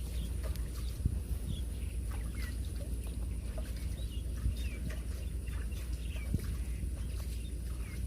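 Outdoor field ambience: a steady low rumble under scattered faint, short chirps from small animals, with a thin, steady high-pitched tone running through.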